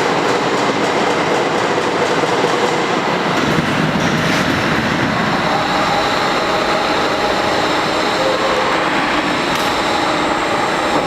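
Steady machine noise of a hydraulic CNC press brake running, a continuous hum and hiss with faint held tones from its hydraulic system.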